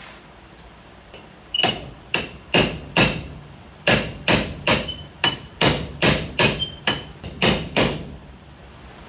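Hammer striking steel on a truck door hinge, driving out its worn pin and bushings: about sixteen sharp, ringing blows, two to three a second.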